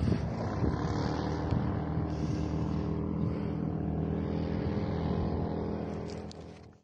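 A motor running steadily with several held pitches, fading out sharply near the end.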